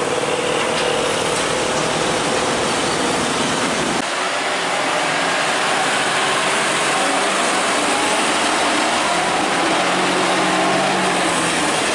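Road traffic: diesel trucks and motorcycles running and passing close by. The sound changes abruptly about four seconds in.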